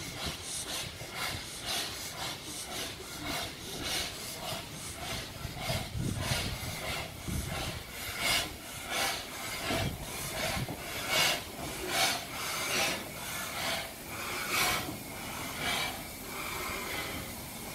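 Steam locomotive, LNER Thompson B1 4-6-0 No. 1264, chuffing slowly as it runs in: soft exhaust beats roughly every half to two-thirds of a second, growing louder as it approaches.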